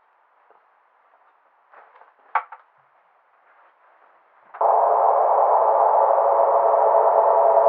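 Near silence with a few faint short blips, then about four and a half seconds in a loud electronic test tone cuts in: a steady cluster of several pitches sounding at once, held without change.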